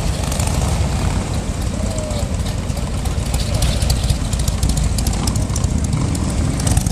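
Harley-Davidson V-twin motorcycle riding slowly past at low revs, its low engine rumble growing louder as it passes close about four seconds in.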